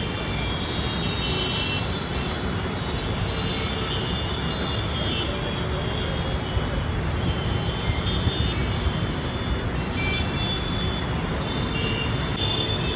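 Steady street traffic noise with faint voices in the background.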